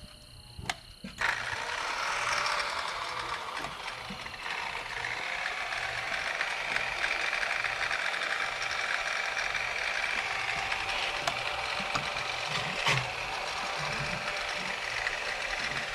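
Electric grinder switched on about a second in and running steadily at a low speed setting against a new dirt racing tire.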